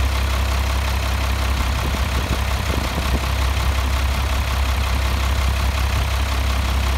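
International DT360 inline-six turbo diesel idling steadily, a deep, even rumble.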